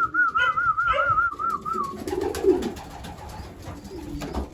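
Racing pigeons cooing in their loft. A high, wavering whistle runs for about the first two seconds, and a low coo comes a little after that.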